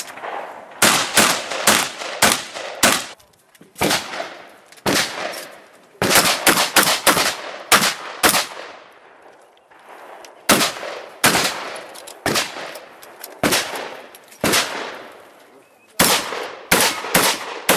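Competition shotgun fired in quick strings of shots, several a second, with pauses of a second or two between the strings; each shot is sharp and leaves a short echoing tail.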